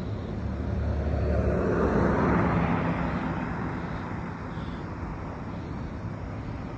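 A passing vehicle: a steady low hum with a rushing sound that builds to a peak about two to three seconds in, then slowly fades.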